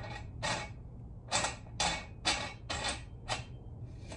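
A wing nut is spun by hand down the threaded center post of a bead-breaker tire changer, clamping a motorcycle wheel in place. It makes about six short metallic clicks and scrapes, spaced unevenly, with a steady low hum underneath.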